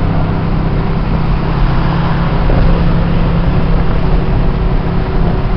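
Steady engine drone and road noise inside a car's cabin while cruising on a freeway, with an even low hum throughout.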